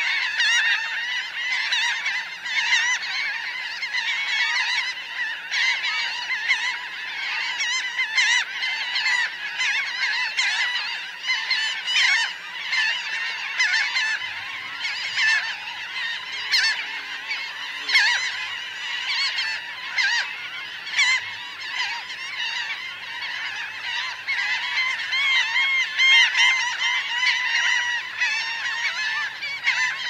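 A large flock of laughing gulls calling at close range, many overlapping calls in a dense, unbroken chorus.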